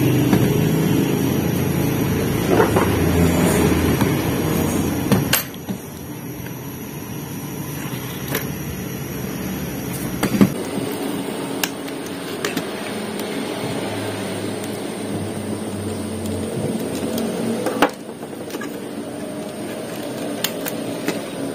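Plastic clicks and knocks of an HP 85A laser toner cartridge being handled and pried apart at its end cap with a screwdriver, about half a dozen sharp clicks spread out over a steady background rumble.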